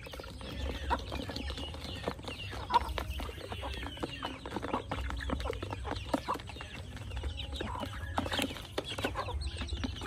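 A flock of chickens clucking while feeding, with many quick taps from beaks pecking at a plastic feed dish.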